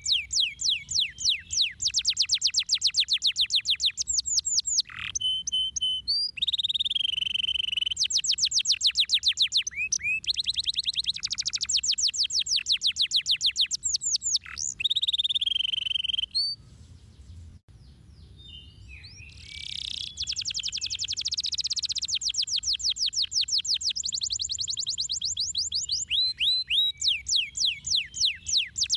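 Domestic canary singing a long, loud song of fast rolling trills: rapid runs of quick repeated high sweeps, broken by lower warbled phrases. The song pauses briefly about two-thirds of the way through, then picks up again with more trills.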